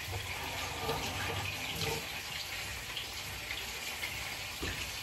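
Kitchen faucet running into a stainless steel sink while dishes are washed and rinsed by hand, with a few light knocks.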